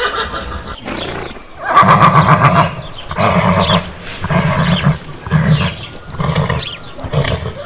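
Horse neighing: a loud whinny about two seconds in, breaking into a series of about six pulsing bursts roughly a second apart.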